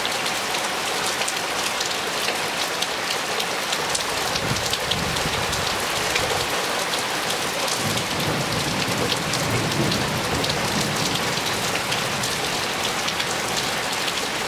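Hard rain pouring onto brick paving, a swimming pool and patio furniture: a steady, dense hiss full of fine splashing drops.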